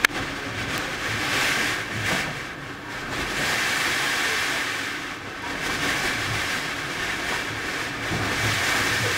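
Blizzard wind blowing hard in gusts, swelling and easing every second or two, with low rumbling from wind on the microphone. A single sharp click right at the start.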